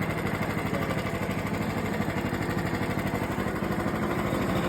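Sawmill's gasoline engine running steadily at an even pace, with a rapid, regular firing pulse and no change in speed or load.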